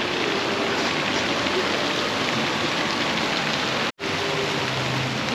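Fountain water splashing in a steady hiss, with a momentary cut-out about four seconds in.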